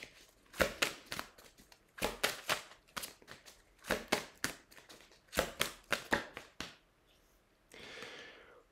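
Divination cards being handled and shuffled by hand: crisp clicks and snaps in quick clusters, stopping about seven seconds in, then a soft rustle near the end.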